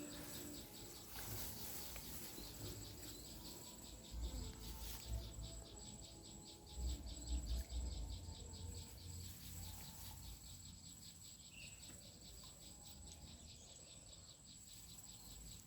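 Insects chirping in a fast, even pulse over a steady high whine, with a few low rumbles around four and seven seconds in.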